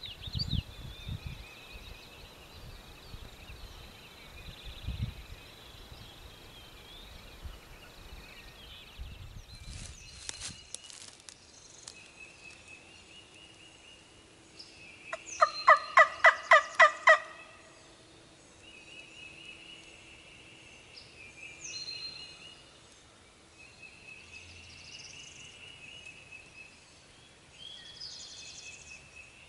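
A quick run of about eight turkey yelps blown on a hand-made wing-bone call, about halfway through and the loudest sound. Songbirds chirp and trill throughout, over low rumbling in the first third.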